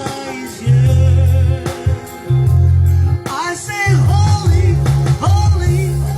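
Gospel-style worship music: a voice sings in sliding, bending phrases over a heavy sustained bass line.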